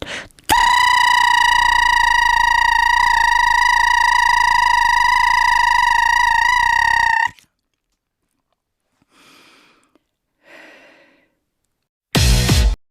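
A string of separate sound effects. A loud, steady, high buzzing tone with many overtones holds for about seven seconds and cuts off abruptly. Then come two faint, short hissing sounds and, near the end, one loud short burst of noise.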